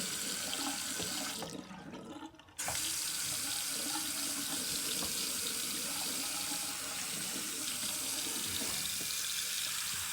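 Water running from a newly installed bathroom faucet into the sink and down the drain. The flow drops away about a second and a half in and comes back strongly after about two and a half seconds, then runs steadily.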